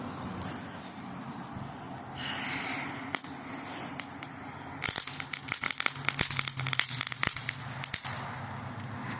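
Consumer fireworks going off: a short hiss about two seconds in, then from about five seconds a rapid run of sharp crackling pops lasting about three seconds.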